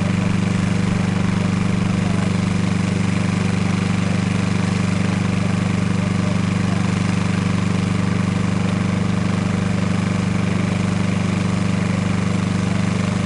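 The engine of a small crawler-mounted Dando Terrier drilling rig running steadily at a constant speed.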